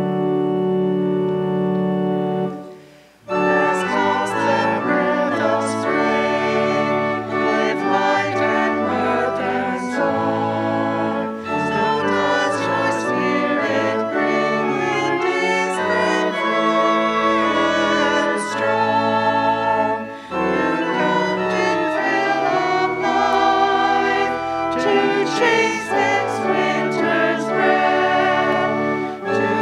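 Church organ holds a chord that cuts off about three seconds in. After a brief gap, voices sing a hymn to organ accompaniment.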